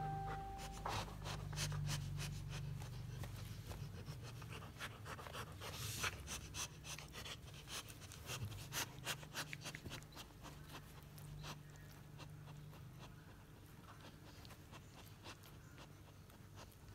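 Labrador retriever panting while mouthing and chewing a knitted rope plush toy, with many small clicks and scratchy gnawing noises that thin out in the second half. A brief steady high tone sounds right at the start.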